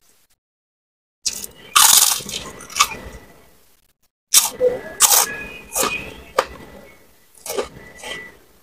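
Close-up crunching and chewing of a crisp fried cracker, with sharp cracks. It comes in two runs, one starting about a second in and another from about four seconds in.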